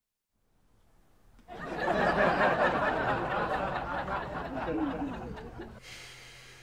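Crowd laughter swelling up over about a second, holding for a few seconds, then fading away.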